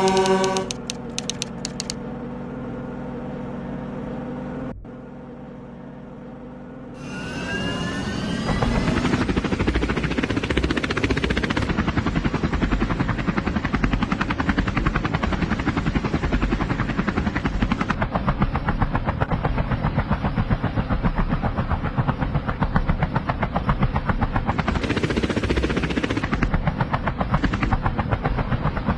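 A horn toots at the very start. About seven seconds in, a helicopter starts up with a rising whine, then its rotor chops steadily at a rapid beat.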